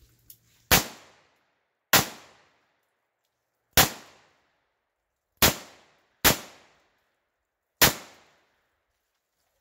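Revolver firing six shots at an uneven pace, each a sharp crack with a short echoing tail.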